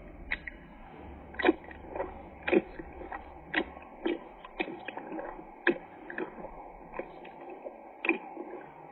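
A pet biting and chewing fruit: irregular crisp crunches, about one or two a second.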